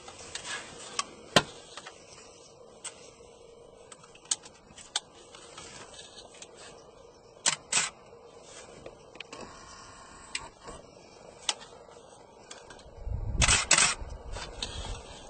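Sharp clicks at irregular intervals over a faint background, with a close pair about halfway through and a louder cluster of clicks over a low rumble about thirteen seconds in.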